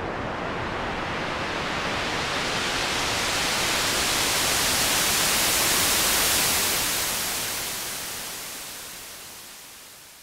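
Arturia JUN-6V software synthesizer, an emulation of the Roland Juno-6, playing its '77 Surf' preset: a wash of noise imitating ocean surf. Its hiss grows brighter and louder up to about six seconds in, then fades away toward the end.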